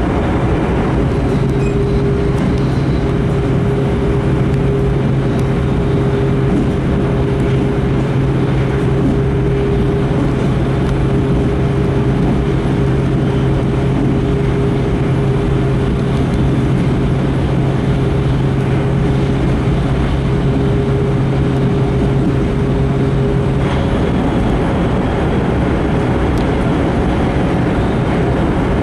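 Steady running noise inside an E5 series Shinkansen carriage at speed, a dense even rumble. A steady low hum sits in it and drops away about five seconds before the end.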